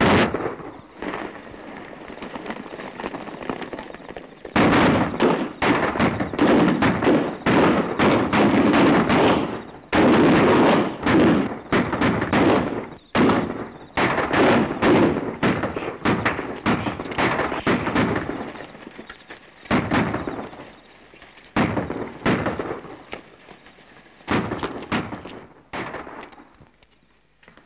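Film soundtrack gunfight: a sharp bang at the start, then from about four seconds in a long stretch of rapid, overlapping gunshots, thinning to scattered single shots toward the end.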